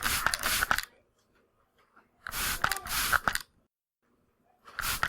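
Atomizer spray bottle being pumped, giving bursts of spray hiss about two seconds apart, each burst a quick run of several squirts.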